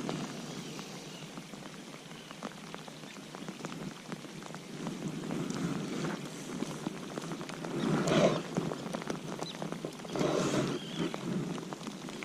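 Rain falling close by: a steady hiss dense with small drop ticks, with two louder spells of noise about eight and ten and a half seconds in.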